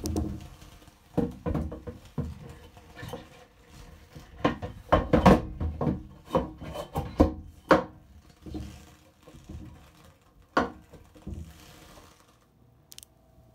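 Clear acrylic sleeve-port covers of an anaerobic glove chamber being handled: irregular knocks, clunks and rubbing as they are taken off the ports and set down. The knocks thin out after about eight seconds, with one last sharp knock later on.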